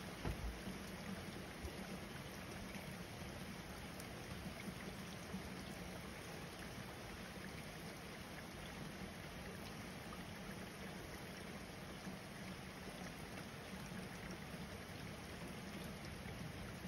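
Steady rain falling, an even hiss, with a couple of soft low bumps about half a second in.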